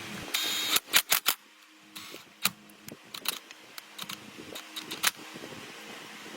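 Workshop handling sounds on metal parts: a short hiss, then a few sharp clicks and scattered light taps. A steady motor hum stops at the start and comes back near the end.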